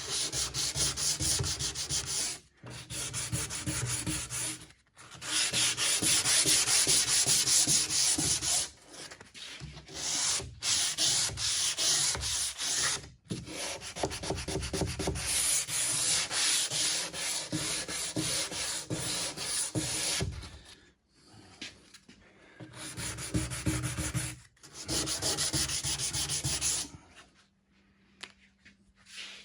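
Hand sanding with 150-grit sandpaper on painted wood: back-and-forth strokes in bouts of a few seconds with short pauses, stopping shortly before the end. The paper is cutting through the paint to distress it and make it look worn.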